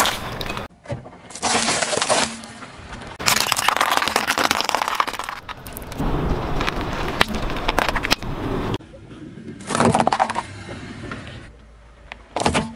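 A car tyre rolling over and crushing small objects on asphalt: a run of crunching and cracking noises in short stretches that start and stop abruptly, with sharp snaps among them.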